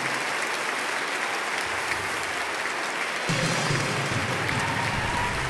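Applause greeting a correct answer, with low steady music tones coming in underneath about three seconds in.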